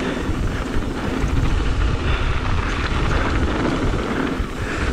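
Wind buffeting the microphone over the steady rumble and crunch of bike tyres rolling fast over a gravel trail.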